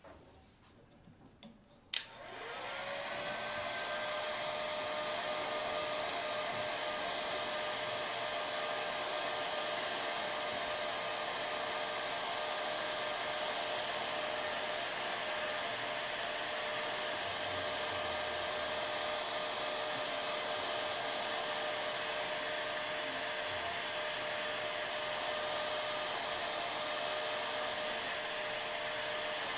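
Electric heat gun switched on with a click about two seconds in, its fan spinning up with a brief rising whine and then running as a steady whir with a high hiss, heating shrink wrap over crimped wire connectors.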